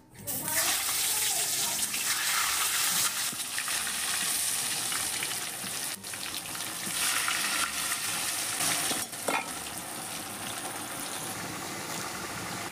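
Halved boiled potatoes dropped into hot oil in a wok, sizzling and bubbling as they fry. The sizzle starts suddenly as they go in and slowly eases, with a metal spatula stirring them near the end.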